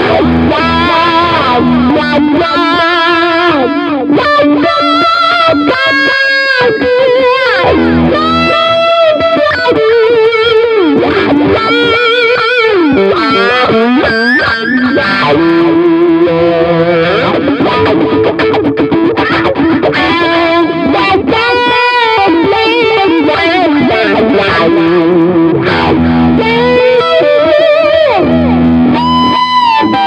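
Squier Affinity Jazzmaster electric guitar played through a Fender Champion 50XL amp: a lead line of single notes with string bends and wide vibrato, with some held notes left ringing.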